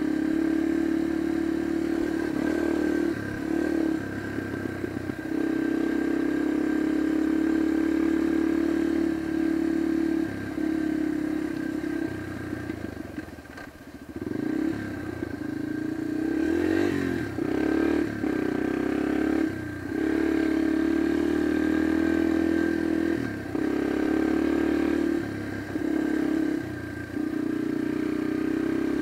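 Yamaha dirt bike's engine running as it is ridden, held at a steady note most of the time. It has short dips where the throttle is backed off, and a stretch of revving up and down about halfway through.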